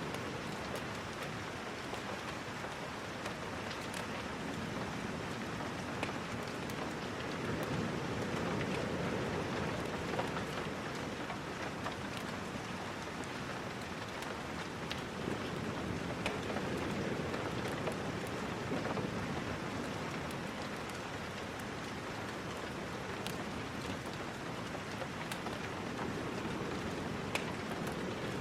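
Steady rain, an even hiss with scattered small sharp ticks.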